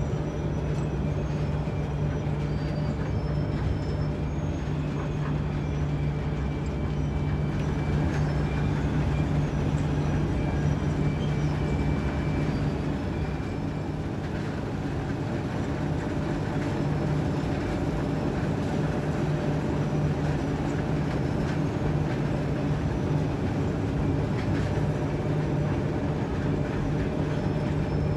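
O&K bucket-wheel excavator's machinery running: a steady low mechanical hum with faint high metallic squeals now and then.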